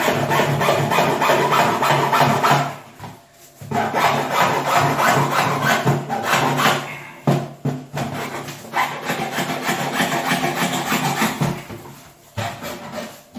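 Hacksaw cutting across a plastic plate: quick back-and-forth rasping strokes in several runs, broken by short pauses.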